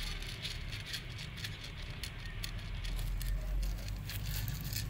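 A cat crunching dry kibble: a quick, irregular run of small crisp clicks as it chews, with a steady low rumble underneath.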